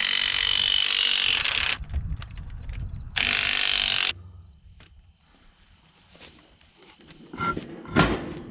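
Cordless impact wrench run in two bursts, about two seconds and then about one second, loosening the lug nuts on a trailer wheel. A sharp knock near the end.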